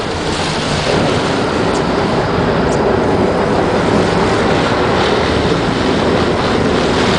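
Sport-fishing boat under way: engine running steadily, with water rushing along the hull.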